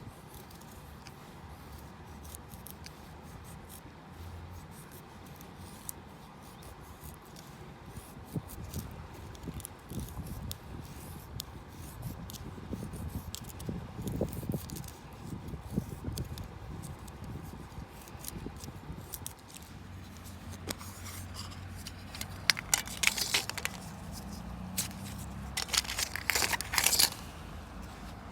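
Close handling noises: scattered small clicks and scrapes, then two bursts of tearing and crinkling near the end.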